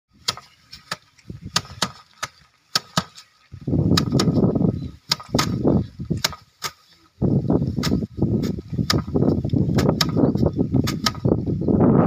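Rice stalk bundles being beaten by hand against a wooden threshing rack: a run of sharp cracks, about two or three a second, as several workers strike in turn. In stretches this is overlaid by loud, low rumbling noise.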